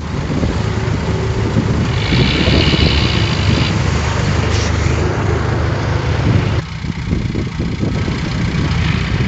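Heavy diesel earthmoving equipment running with a steady low rumble. A higher squeal-like noise comes in for a couple of seconds about two seconds in, and the sound drops somewhat after about six and a half seconds.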